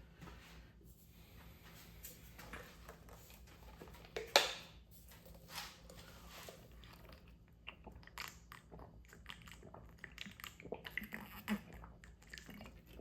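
Scattered rustling, crunching and clicking as things are handled close by, with the loudest rustle about four seconds in.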